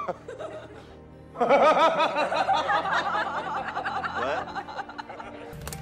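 Background music: after a quiet first second, a wavering, warbling vocal-like line comes in and fades away.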